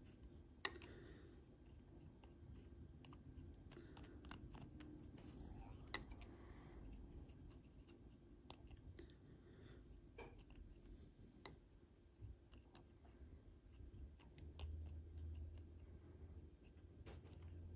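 Near silence: faint ticks, rubs and scratches from handling a small model on a paint tin and dabbing on panel line wash with a fine brush, with a sharper click about half a second in and another about six seconds in.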